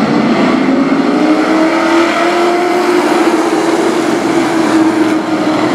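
Pack of race trucks' engines at full throttle as the field accelerates down the front stretch: a loud, steady drone that rises slightly in pitch and then holds.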